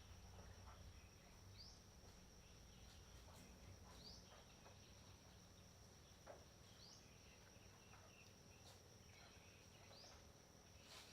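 Faint forest ambience: a steady high-pitched insect drone, with a short rising chirp repeating every two to three seconds and a few faint scattered calls.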